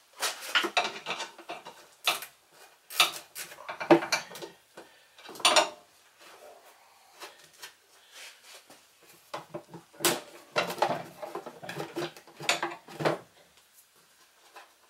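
A half-inch wrench working the bolts of the metal cover on a snowblower's Tecumseh engine. Irregular metallic clinks, knocks and rattles, with a quieter stretch in the middle.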